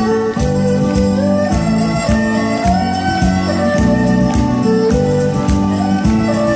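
Erhu playing a melody with sliding notes over a backing accompaniment with a steady beat.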